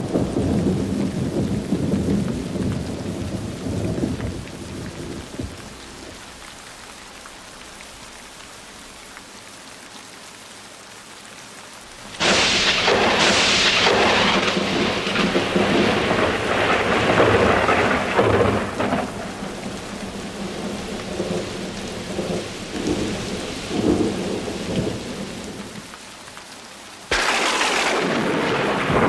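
Heavy rain falling steadily, with thunder. A rumble dies away over the first few seconds, a sudden loud thunderclap about twelve seconds in rolls on for several seconds, and another breaks near the end.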